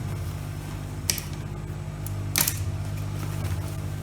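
Sewing machine stitching steadily: a low hum with a rapid, even rhythm, with two sharp clicks about one and two and a half seconds in.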